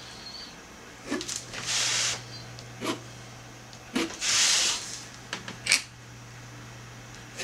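Broad-nibbed calligraphy pen scratching across paper in two longer strokes, the second louder, with a few sharp clicks of the pen on paper, over a steady low hum.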